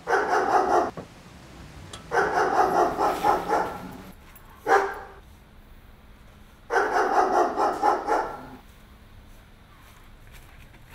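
Dog barking in quick volleys: three runs of rapid barks, each a second or two long, with a single short bark just before the third run.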